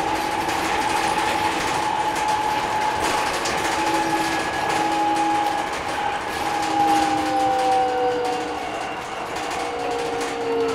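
Cabin sound of a 2018 BYD K9M battery-electric bus under way: the whine of the electric drive motors, several steady tones over road and body noise. The tones slide lower in pitch in the second half as the bus slows.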